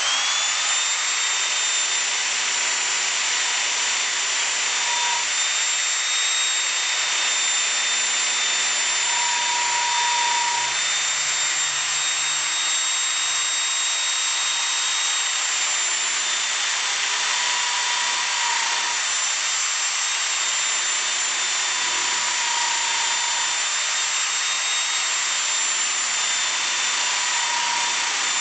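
Milling machine's end mill cutting along the edge of an aluminium plate: a steady, high-pitched machining noise with a thin, constant whine over it, and a fainter tone that swells and fades every few seconds.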